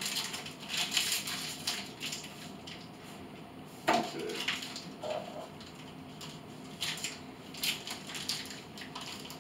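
Paper bags and wrappers rustling and crinkling as small items are handled and unwrapped, with a sharp knock about four seconds in.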